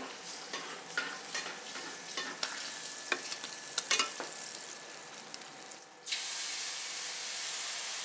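A whole trout frying in a pan, with a crackling sizzle and repeated clicks and scrapes of a spatula against the pan. About six seconds in, a loud, steady hiss starts suddenly as water is poured into the hot pan and turns to steam.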